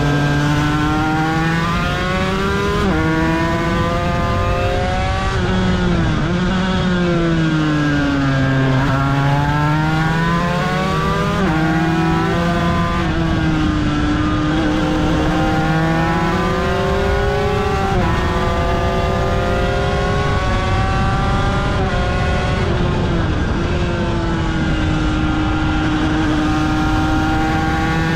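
Aprilia RS250's two-stroke 90° V-twin racing engine at full throttle on track, revs climbing and dropping sharply at each upshift, about three seconds in and again near twelve and twenty-three seconds. The pitch falls away twice with the revs dropping under braking and downshifts.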